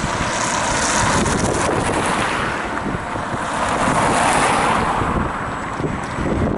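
Wind rushing over the microphone of a moving electric unicycle, with a low rumble underneath; the rush swells to its loudest about four seconds in.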